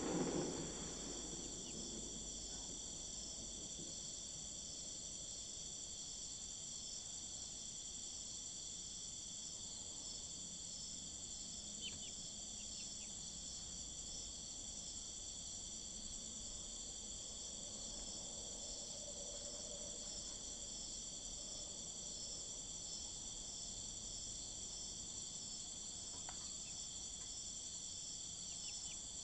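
Steady, high-pitched trilling of crickets, unchanging throughout.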